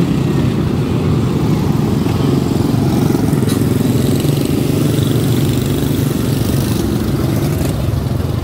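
A pack of quarter midget race cars, their small single-cylinder Briggs & Stratton Animal four-stroke engines running together in a steady, overlapping drone as they circle the track.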